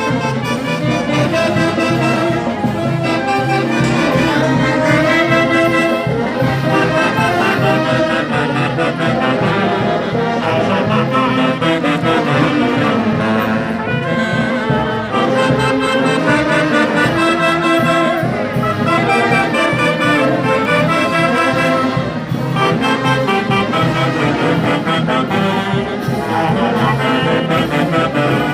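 A festive band of wind instruments playing a lively tune, with brass and saxophone-like horns leading, loud and unbroken.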